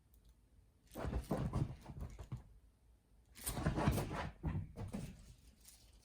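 A dog making noise in two bursts of about a second and a half each, the first about a second in and the second past three seconds.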